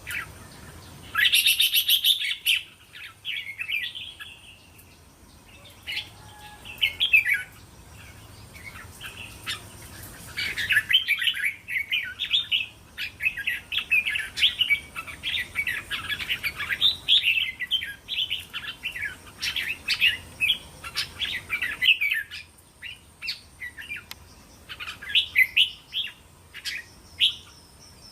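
Red-whiskered bulbuls singing and chattering in quick, bubbly phrases, with a loud burst about a second in and a long, busy run of calls in the middle.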